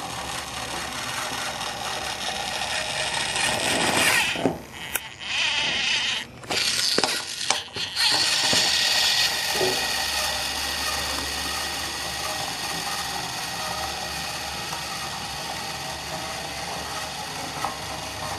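Battery-powered TOMY Trackmaster Stanley toy engine's small motor and gears whirring as it runs along a metal picnic table. The sound cuts out briefly a few times about four to eight seconds in.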